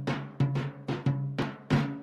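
Instrumental opening of an Armenian ashugh song: a drum struck in a quick, uneven rhythm of about three strokes a second, each stroke dying away fast, over a low held tone.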